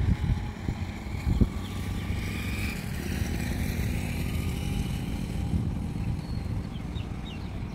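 Low, steady rumble of an express train hauled by an electric locomotive, approaching from a distance. Two short low thumps in the first second and a half, like wind hitting the microphone.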